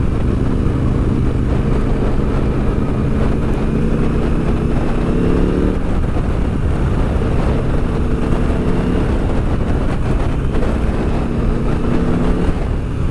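KTM 890 SMT's parallel-twin engine running at a steady cruise through a Vandemon titanium exhaust, with heavy wind rumble on the microphone. The engine note changes pitch around six seconds in and again near nine and twelve seconds.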